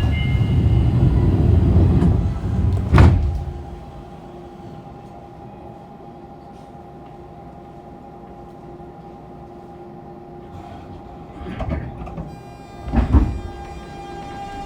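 Subway car sliding doors closing with a rush of air and a heavy thud about three seconds in, then a steady electrical hum while the train stands. Near the end come two clunks from the line breaker as power is applied to start off, and the whining tones of the Hitachi GTO-VVVF inverter are just beginning.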